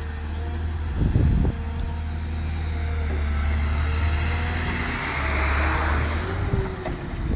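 Caterpillar M318D wheeled excavator's diesel engine running steadily. There is a brief cluster of knocks about a second in, and a hiss swells and fades around the middle.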